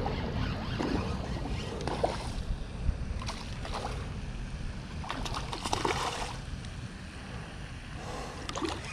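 Small largemouth bass splashing and thrashing at the pond surface while it is reeled to the bank, in three bursts, over a steady low rumble of wind on the microphone.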